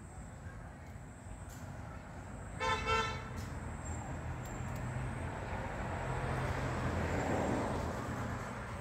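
A vehicle horn toots twice in quick succession about three seconds in, then a passing vehicle's engine and road noise swell and fade away.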